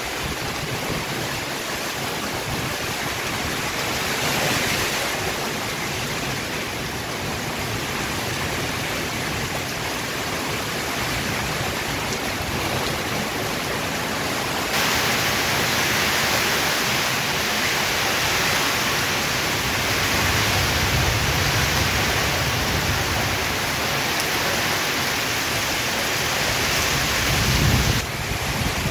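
Heavy rain falling in strong wind, a steady hiss that gets louder about halfway through, with low rumbling in the second half.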